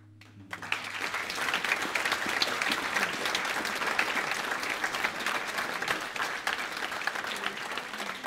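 The last acoustic guitar chord dies away and stops about half a second in, then an audience breaks into applause, with steady, dense clapping.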